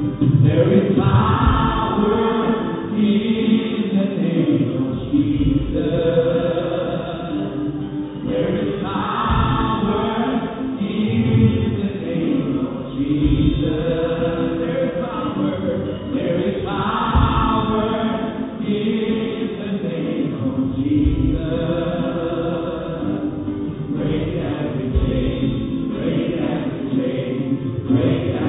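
Many voices singing a Christian worship song together, choir-style.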